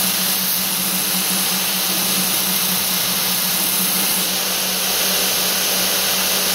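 Belt grinder running steadily with its abrasive belt over a 10-inch contact wheel while a knife blade, held in a jig, is hollow-ground against it. A steady hiss of belt grinding over a constant low motor hum.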